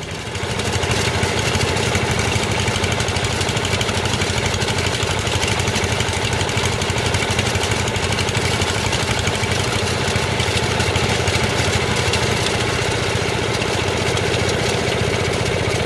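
Small stationary engine powering a horizontal drilling rig, running steadily with a fast, even chugging; it comes in loud about half a second in.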